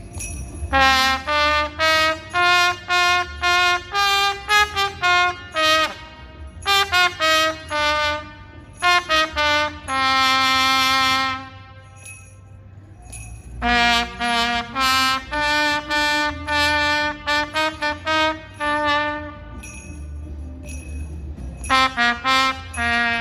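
Solo trumpet playing a melody in phrases of short notes, with one long held note about halfway through, over a low background rumble.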